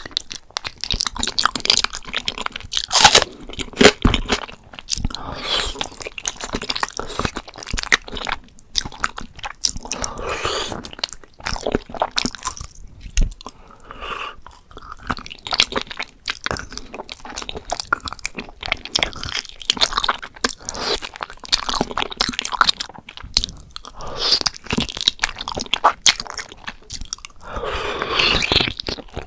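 Close-miked eating of spicy braised beef feet: repeated biting and chewing, with crunching and many sharp clicks of the mouth.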